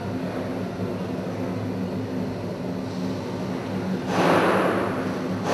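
Steady machine hum with a few fixed low tones. About four seconds in, a loud rushing noise starts and lasts over a second.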